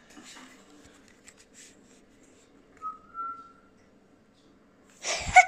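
Mostly quiet with a faint low hum. A single short whistled note about three seconds in, then a brief loud burst near the end.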